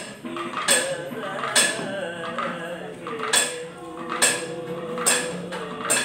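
Kathakali accompaniment: sharp metallic clangs of bell-metal percussion, struck about once a second, each ringing briefly, over a held, slightly wavering pitched note.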